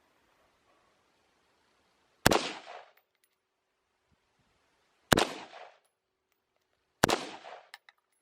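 Three gunshots, the first about two seconds in and the others roughly three and two seconds after it, each sharp report followed by a short echoing tail.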